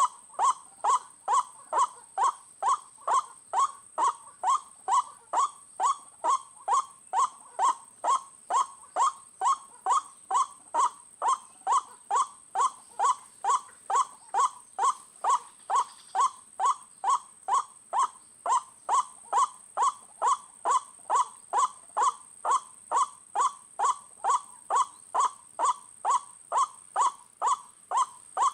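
White-breasted waterhen calls: a short falling 'kwak' repeated steadily about twice a second, without a break, over a steady high-pitched whine.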